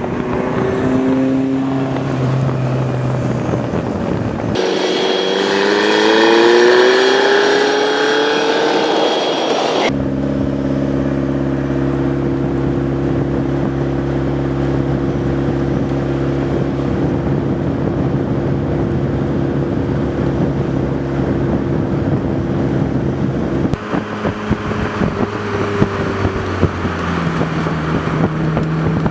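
Car engine running at a steady pitch, in stretches that change suddenly. About five to ten seconds in, the pitch climbs as it revs.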